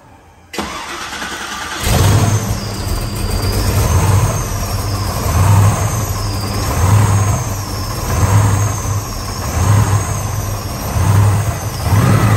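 A hot rod's engine cranked by the starter, catching about two seconds in, then running at a surging idle that swells and falls about every second and a half, with a wavering high whine over it. Near the end the throttle is blipped by hand and it revs up.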